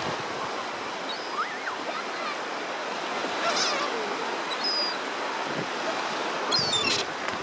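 Sea surf washing steadily on a beach, with gulls giving short high cries now and then, several in quick succession near the end.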